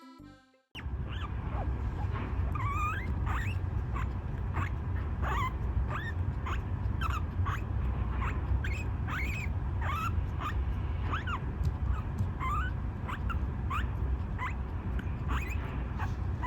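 Guinea pig wheeking: a long run of short rising squeals, about two a second, starting about a second in, the begging call for a treat. A steady low rumble runs underneath.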